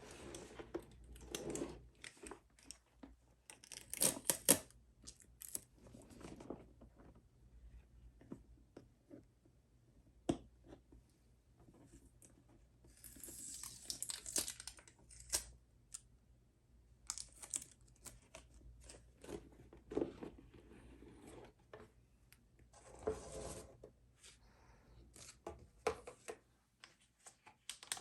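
Cardboard jigsaw puzzle pieces clicking and rustling as they are handled, with a few short bursts of crinkling and tearing, like a plastic bag being handled.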